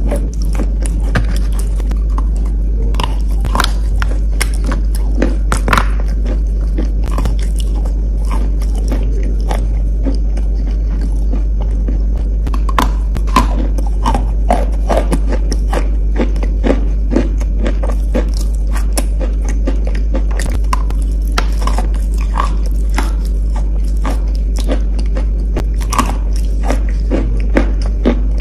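A person biting and chewing soft, wet chalk: many irregular small crunches and crackles throughout, over a steady low hum.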